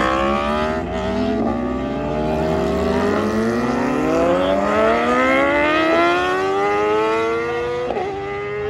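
Sport motorcycle engine revving hard as the bike accelerates away through the gears. The pitch climbs and drops back at each of several upshifts.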